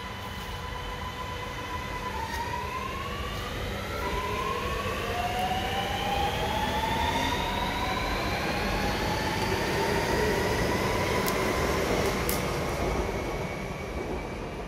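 A Sydney Metro Alstom Metropolis train accelerating away from the platform. Its traction motors give a whine that climbs in pitch in several steps, over a rumble that builds and then eases off near the end as the train draws away.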